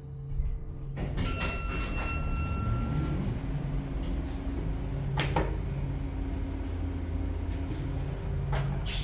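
Otis Hydrofit elevator's single-speed side-opening door opening after the car arrives. A clunk about a second in and a short electronic chime tone, then the door sliding over a steady low hum. Sharp clicks mid-way and again near the end, the last as a car call button is pressed.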